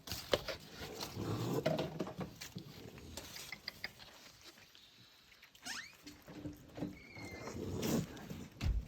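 Raccoons and their kits at the door making small chirps and chittering, with a few short high whistled chirps in the second half, among scattered knocks and rustling.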